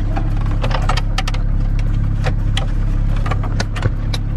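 Plastic centre-console trim around the gear selector being pressed and snapped back into place: a quick series of sharp clicks and snaps. Underneath, the steady idle hum of the BMW 335is's twin-turbo straight-six.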